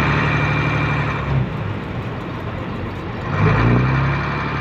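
A fishing boat's engine revved twice over a steady engine hum. Each rev rises in pitch and then holds; the first lasts about two seconds, and a shorter one follows about three seconds in.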